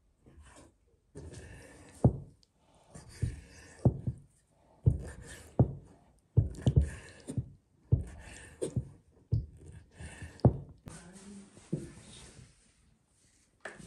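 Kitchen knife cutting raw bull testicles on a wooden cutting board: a run of sharp knocks as the blade strikes the board, irregular and about one to two a second, in short groups with brief pauses.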